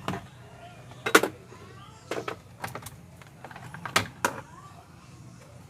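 Hard plastic steering-column trim cover being handled: a run of sharp clicks and knocks, the loudest about a second in, then a few more around two to four seconds in.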